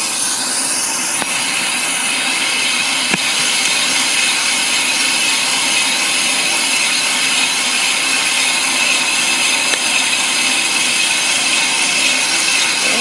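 Ammco brake lathe spinning a brake drum while the cutting bit feeds across the inner braking surface, cutting off the glazed finish: a steady scraping, rasping noise with high ringing tones. Two faint clicks come in the first few seconds. The cut is nearing the end of its first pass.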